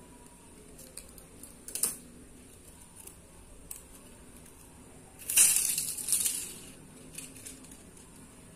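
A thin strip of green bottle plastic, shaved into a kite-hummer ribbon, being handled and unwound from its coil: a few light clicks, then a louder crinkling rustle of the stiff plastic lasting about a second, a little past the middle.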